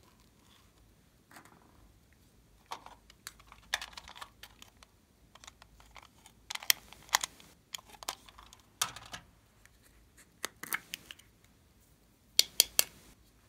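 Small plastic containers and a plastic toy camera being handled: clusters of sharp plastic clicks and short rattles every second or two.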